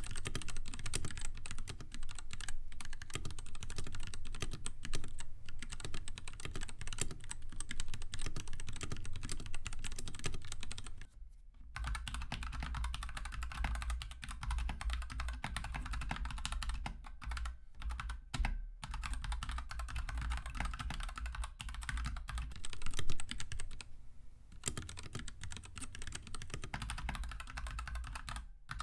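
Continuous fast typing on a mechanical keyboard with Gateron linear switches, a rapid patter of key strikes bottoming out. It pauses briefly about eleven seconds in, then resumes with a deeper, fuller thock, as the test moves from one switch type (Gateron Red or Gateron Pink) to the other.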